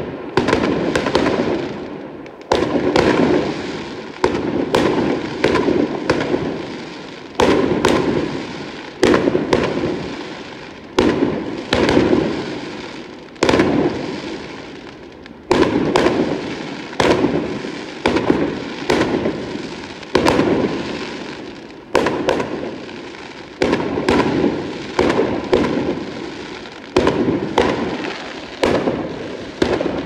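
Aerial fireworks bursting in a rapid string: a sharp bang every one to two seconds, each followed by a fading crackle.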